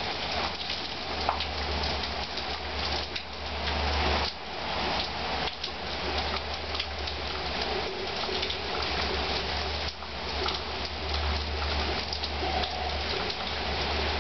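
Hurricane downpour: heavy rain falling as a dense, steady hiss of drops, over a low rumble that swells and dips.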